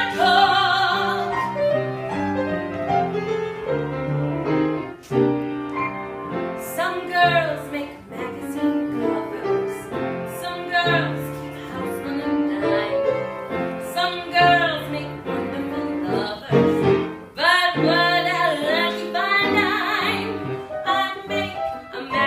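A woman singing a show tune with piano accompaniment; a held note with vibrato ends about half a second in.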